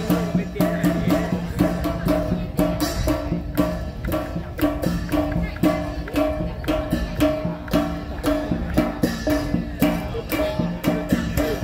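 Music with a fast, even drum-and-percussion beat of about four strokes a second, with a pitched instrument holding and repeating notes beneath it.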